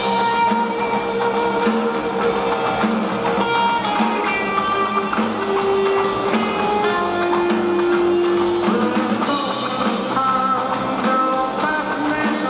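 Rock band playing live: electric guitar holding long notes over a steady, repeating bass line and drums, with little or no singing.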